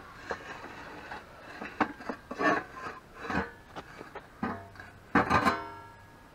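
Clanks, knocks and scrapes of a homemade rotisserie's metal mounting plate and motor box being set into place at the mouth of a brick wood-fired oven, with a cluster of the loudest clatters, some ringing briefly, about five seconds in.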